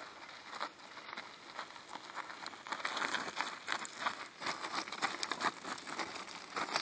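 Loose gravel crunching and crackling in a dense, irregular patter, growing louder from about half a second in and loudest over the second half.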